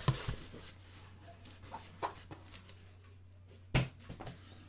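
Handling of an emptied cardboard box: a few light knocks and rustles, with one sharper knock a little under four seconds in.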